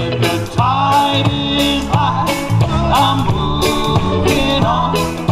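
Live band playing amplified music on electric bass, electric guitar and drum kit, with a steady beat.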